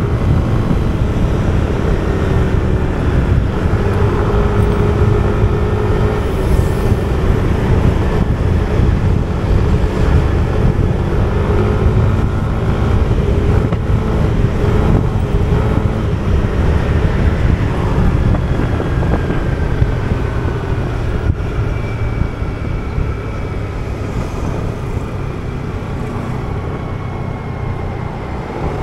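Yamaha motor scooter's engine running at road speed, with a steady rumble; its pitch falls gradually and it gets a little quieter in the last third as the scooter slows.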